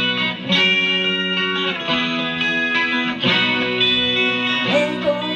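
Live rock band playing, the electric guitar to the fore, with sustained chords changing about every second and a half.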